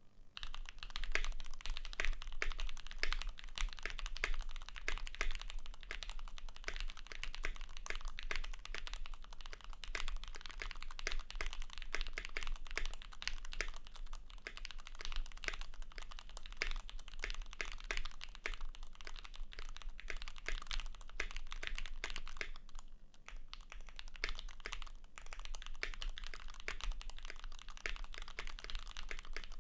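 Steady fast typing on a Keychron Q1 custom mechanical keyboard with lubed Gateron X switches, a steel plate, a tape mod and GMK keycaps: a dense run of key clacks that breaks off briefly about 23 seconds in.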